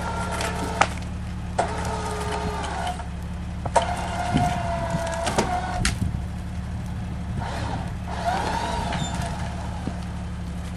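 Jeep engine idling steadily, with a few sharp cracks and clicks over it.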